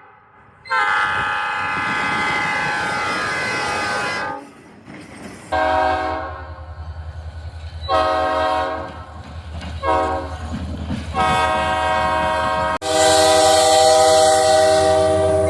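CN EMD SD60 diesel locomotive sounding its multi-note air horn in a series of blasts, the first long, several shorter ones, and a final blast held to the end. A low diesel engine rumble grows under the horn from about five seconds in as the locomotive approaches.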